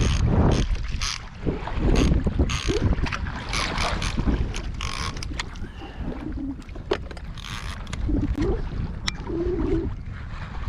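Water splashing and sloshing against a kayak, with scattered sharp knocks and clicks from gear being handled and wind rumbling on the microphone.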